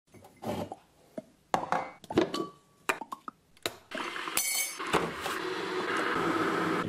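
Tea being made: a quick run of sharp clinks and knocks of cups, spoon and kitchen things, then a steady rushing hiss from about four seconds in.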